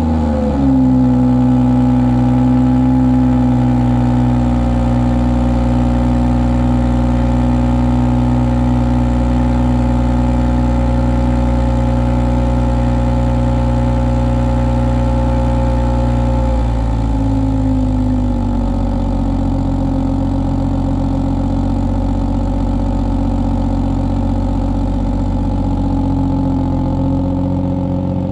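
A 2018 BMW 440i's turbocharged 3.0-litre inline-six idling fast just after a cold start, heard at the M Performance exhaust tailpipe with its valves closed: a loud, steady, even drone. Its note shifts slightly about 17 seconds in as the cold idle settles.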